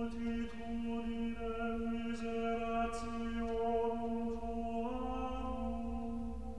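A chant-like drone on the soundtrack: one note held steadily, its tone colour shifting slowly, stepping slightly higher in pitch about five seconds in.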